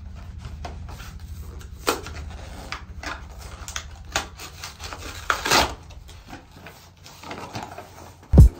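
Rustling, scraping and small clicks of a tie-dye kit's packaging being handled and opened, with a louder rustle about five seconds in, over a steady low hum. Loud music cuts in just before the end.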